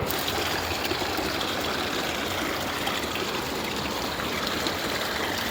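Small waterfall running steadily down a rocky hillside, a continuous rushing splash of water over rocks.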